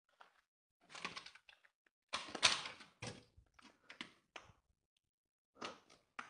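Irregular scuffs and light knocks, about nine in all and the loudest about two and a half seconds in: footsteps and handling noise from someone moving over a debris-strewn floor.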